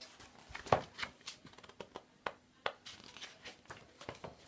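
Paper pages of a picture book being handled and turned: a string of irregular rustles and soft clicks, the loudest about three quarters of a second in.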